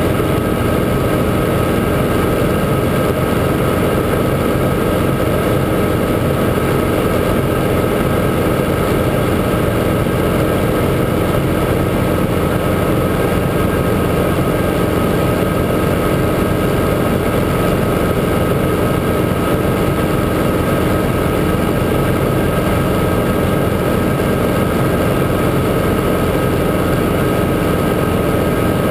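Guimbal Cabri G2 helicopter running steadily, its Lycoming four-cylinder piston engine and rotor system making a constant drone with a steady high whine over it.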